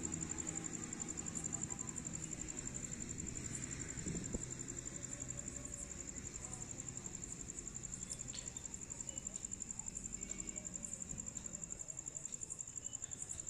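Cricket trilling steadily at a high pitch in fine, rapid pulses, with a faint low hum underneath.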